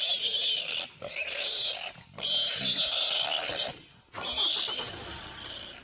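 Wild animals fighting: loud, harsh animal cries in four bursts, the third the longest, dying down near the end.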